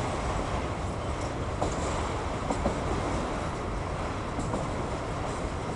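Autorack freight cars rolling past on the rails: a steady rumble of wheels on track, with now and then a faint click.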